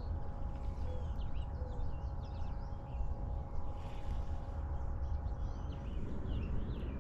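Several wild birds chirping and calling in short notes over a steady low rumble, with a faint steady hum that fades out about six seconds in.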